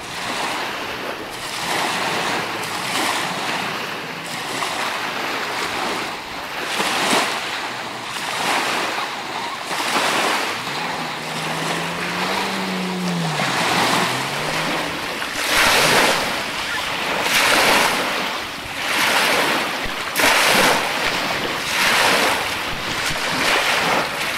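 Small waves washing onto a lake shore, surging every couple of seconds and stronger in the second half, with wind on the microphone. A low droning tone rises and falls briefly near the middle.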